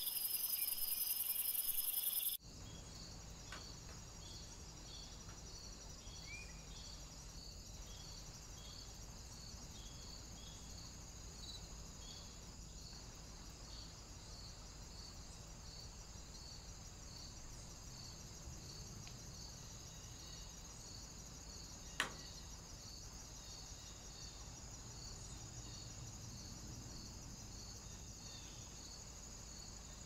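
Insects chirping in a steady, evenly spaced high pulse, over low camera hum, with one sharp click about two-thirds of the way through. The first two seconds hold a louder, higher insect hiss that cuts off abruptly.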